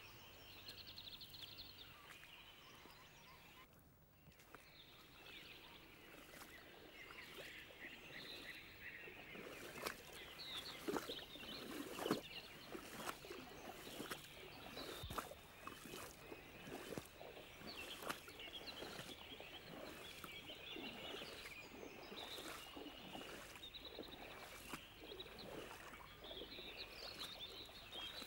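Faint birdsong over a quiet background of running water, with footsteps in waders crunching and splashing through shallow river water, irregularly about once a second from about a third of the way in.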